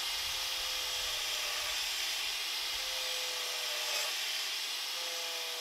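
Angle grinder with a carving disc cutting into a block of walnut. It gives a steady motor whine over a hiss of wood being shaved away. The pitch sags slightly as the disc bites and recovers a couple of times.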